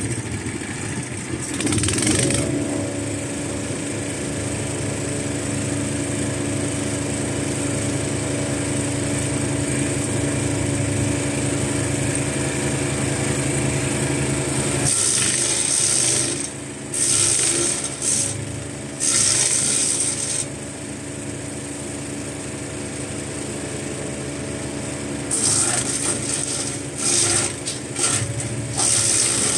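Gas wood chipper's 420cc, 15 hp engine running steadily, with several loud bursts of noise on top as branches go through the chipper: once near the start, in a few bursts over about five seconds from halfway, and again in a few bursts near the end.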